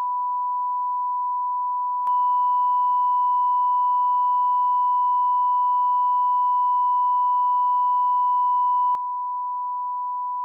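A steady electronic censor bleep: one pure beep tone held for the whole stretch, covering speech. From about two seconds in until about nine seconds it gets louder and brighter, as higher tones join it.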